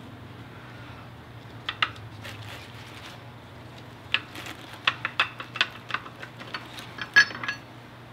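Irregular metallic clinks and taps of tools and parts against an open rear differential's housing during teardown: a couple about two seconds in, then a quick run in the second half, the loudest with a brief ring near the end.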